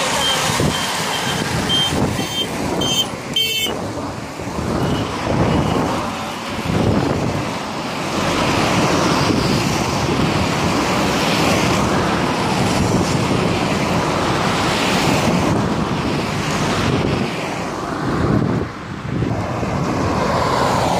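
Race convoy of cars driving past close by, a continuous rush of engines and tyres. A quick run of short high beeps sounds in the first few seconds.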